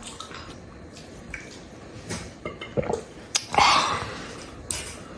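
A child slurping soup from a bowl: a short loud slurp about three and a half seconds in, with a few faint clicks of tableware before it.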